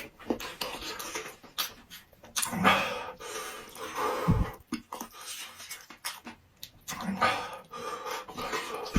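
Close-up eating sounds: slurping and chewing, with hard, panting breaths from the heat of very spicy food, in irregular bursts.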